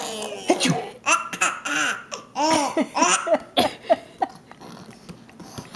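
Hearty laughter in a run of quick, breathy bursts for about four seconds, easing off near the end.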